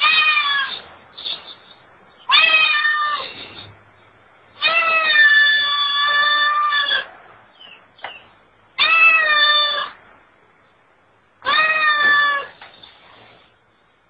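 Long-haired cat meowing five times, each call about a second long except the middle one, which is drawn out for over two seconds.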